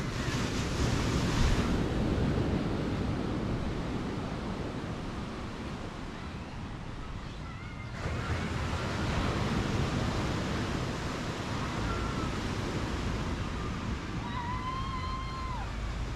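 Surf washing onto a sandy beach, a steady rush, with wind buffeting the microphone. Near the end there is a brief pitched call.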